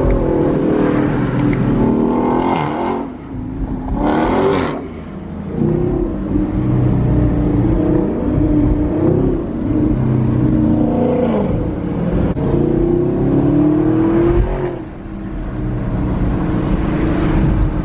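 Chevrolet Camaro ZL1's supercharged V8 accelerating through the gears under a manual gearbox, its revs climbing and then dropping sharply about three seconds in and again near the end as gears are shifted. Two short rushing noises come in the first five seconds.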